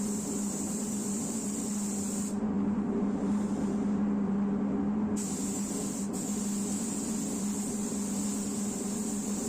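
Pneumatic spray gun hissing as the painter sprays, the air cutting off a little past two seconds in and starting again about five seconds in, over a steady low hum of running equipment.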